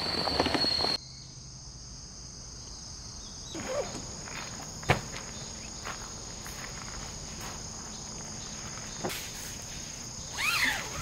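Insects chirping in a steady high trill, with a few faint knocks and one sharp click about five seconds in. A louder, different stretch cuts off abruptly about a second in.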